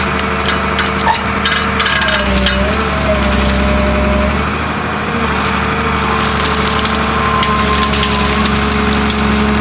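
A heavy machine's engine running steadily, with whining tones that hold and then shift in pitch, and scattered sharp cracks and snaps throughout.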